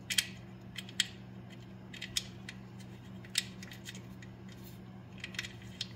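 Scattered light metallic clicks and ticks of a small fitting and copper washer being handled against a T56 transmission's hydraulic clutch slave cylinder, over a steady low hum.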